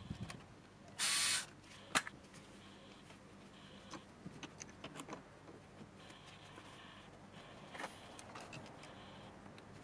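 Hand tools and small parts being handled during engine-bay work: a brief rasping hiss about a second in, then scattered sharp clicks and light taps.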